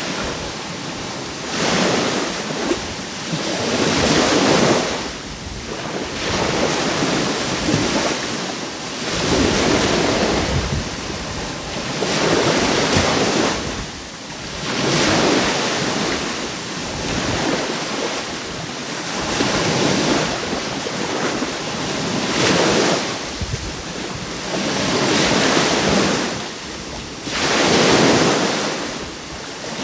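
Small sea waves breaking and washing up the shore, a swell of surf rising and falling every two to three seconds.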